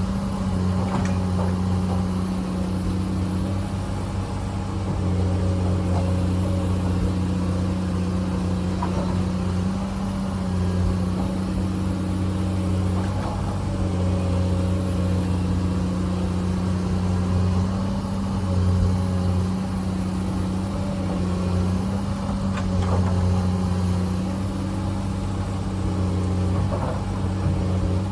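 Komatsu hydraulic excavator's diesel engine running steadily, its note swelling and easing every few seconds as the machine works under changing load, with a few faint knocks scattered through.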